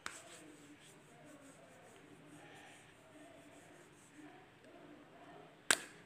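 Faint voices murmuring in a small room, with a brief sharp click at the very start and a much louder sharp click near the end.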